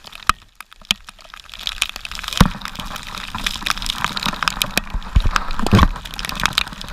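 Strong wind and rain on the microphone: many sharp crackles and pops over a rushing hiss. The wind buffets the microphone in low gusts, loudest about two and a half seconds in and again near six seconds.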